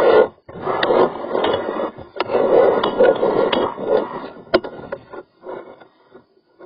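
Rough scraping and rubbing with several sharp clicks and knocks, from a drain inspection camera's cable being pushed and worked through a sink drain hose; it thins out after about five seconds.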